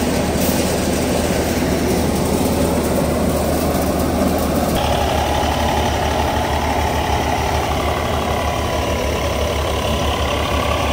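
Thresher running off an Eicher 485 diesel tractor's PTO shaft, with the tractor engine working under steady load and the thresher drum churning. The sound changes character about five seconds in, the low hum turning more pulsing.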